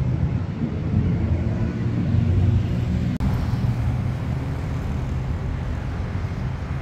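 Road traffic on a busy city avenue: a steady rumble of car engines and tyres, broken by a brief cut about three seconds in.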